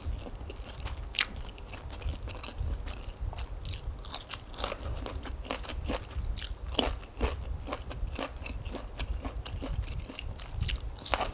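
Close-miked chewing of a mouthful of spicy rice-noodle salad, with crisp crunches and wet mouth clicks.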